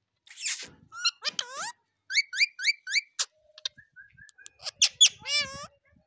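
Indian ringneck parakeet calling in a string of separate high-pitched calls. It opens with a harsh screech, then some gliding whistles and a quick run of four chirps. Near the end come sharp clicks and a curving whistle.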